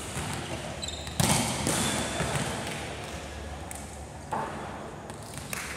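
A volleyball is struck hard about a second in, the smack echoing through a large gym hall, followed by a couple of softer knocks of the ball.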